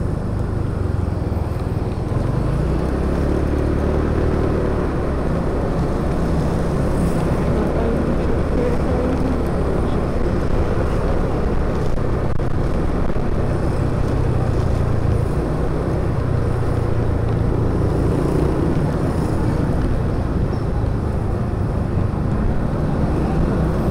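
Motorbike engine running steadily while riding through street traffic, with the hum of other motorbikes and road noise around it.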